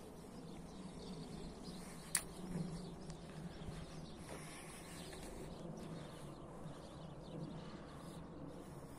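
Faint outdoor background noise with no clear source, broken by a single sharp click about two seconds in.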